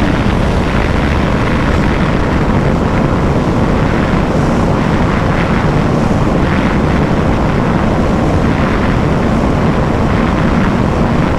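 KTM 390 Adventure's single-cylinder engine running steadily at high speed, probably in sixth gear, mixed with heavy wind rush on a top-speed run.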